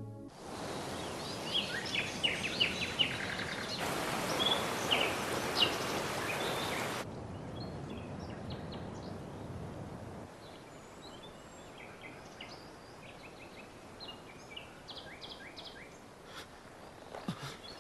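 Morning outdoor ambience: small birds chirping in short clusters over a steady hiss. The hiss is louder for the first seven seconds and then drops away, leaving the birdsong thinner and quieter, with a few soft clicks near the end.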